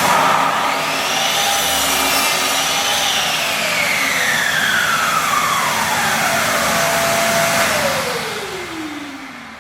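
Electric power saw motor running loudly, then its whine falling steadily as the motor winds down over the last several seconds.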